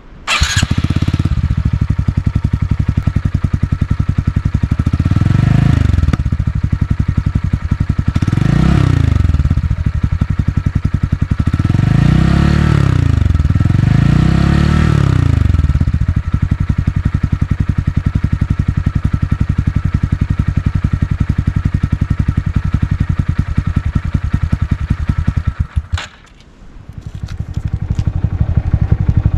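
Honda Grom 125's single-cylinder engine started and left idling, heard through a camera microphone set near the muffler. The throttle is blipped four times, each rev rising and falling back to idle. About four-fifths of the way through the sound cuts out abruptly, and near the end the engine sound builds up again.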